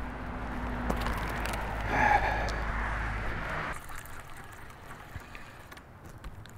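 Passing road traffic: a steady low hum of engine and tyres that swells about two seconds in, then cuts off at once to a quieter background with a few faint clicks.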